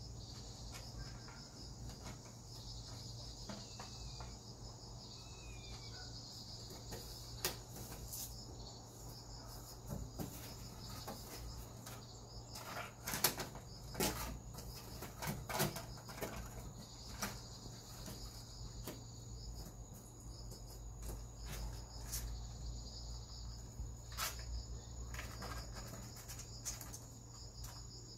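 Insects chirring steadily at a high pitch, with scattered light knocks and scrapes, most of them about halfway through.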